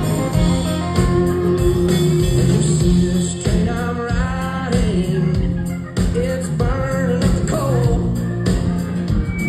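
Live country-rock band heard from the audience: strummed acoustic guitar, electric guitar and drums playing, with a man's lead vocal coming in about three and a half seconds in.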